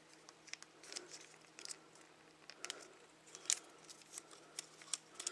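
Faint, irregular clicks and scrapes of a plastic Transformers action figure's parts being handled and pressed back into place, the sharpest click about three and a half seconds in.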